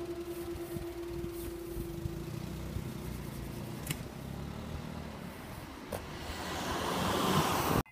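Cars pulling away over a level crossing as its barriers rise, engines and tyres running, with a steady hum for the first three seconds. Near the end a car drives close past, getting louder until the sound cuts off suddenly.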